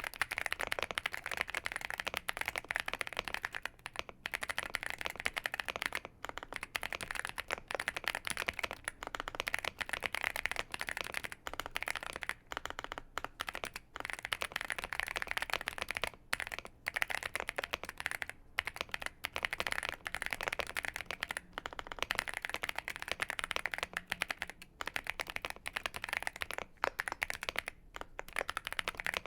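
Continuous fast typing on a Womier SK71 75% mechanical keyboard with CannonKeys Coffee Chip Ice Cream tactile switches, a dense run of keystroke clicks with only brief pauses.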